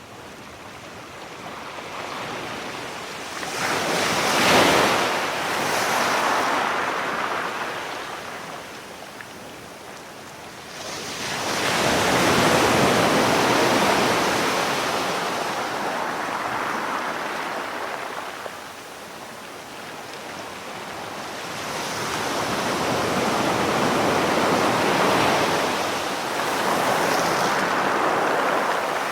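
Ocean waves breaking and washing in, swelling and fading in three long surges.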